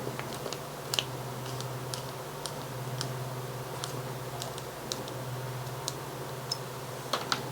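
Scattered light clicks and ticks of small limit switches and their tiny screws being handled and unscrewed from a mounting bracket, over a steady low hum.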